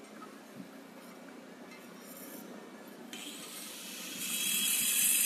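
A high, steady hiss begins about three seconds in and grows louder near the end, over a faint low background rumble.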